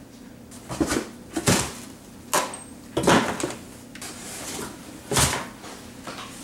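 Things being handled and set down: a series of about five separate knocks and rustles, the loudest about one and a half and three seconds in.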